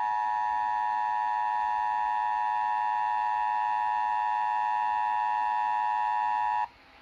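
Emergency Alert System attention signal: the steady two-tone alarm that opens a Required Monthly Test, held without a break and then cutting off suddenly near the end.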